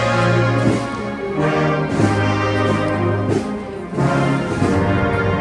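Brass band playing a slow processional march: held brass chords over long low bass notes, the chords changing about once a second.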